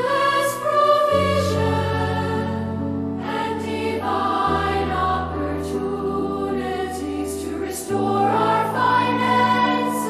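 Background choral music: a choir singing slow, sustained lines over low held notes that change every few seconds.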